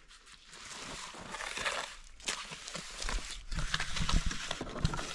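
A steel shovel scraping through and tipping wet concrete, and concrete being worked into cinder blocks: a gritty scraping with many small knocks, heavier low thumps in the second half.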